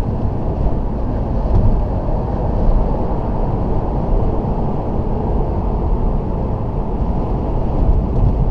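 Steady road and engine noise inside a Toyota Auris's cabin at motorway speed: a low, even rumble of tyres and engine.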